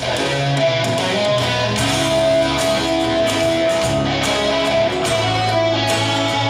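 Instrumental passage of a rock song led by guitar over bass, with no singing.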